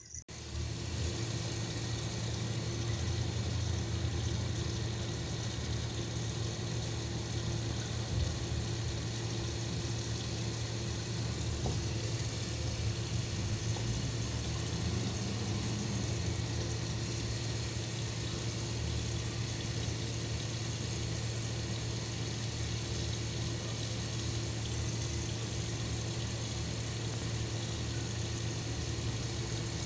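Water running steadily in a constant rush, with a low steady hum beneath it.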